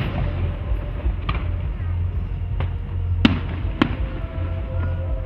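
Aerial firework shells exploding: a run of sharp bangs, about five in five seconds, the loudest a little over three seconds in, over a steady low rumble.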